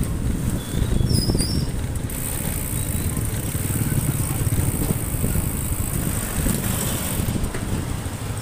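Motorcycle ride heard from the rider's seat: a steady low engine-and-road rumble with wind buffeting the microphone.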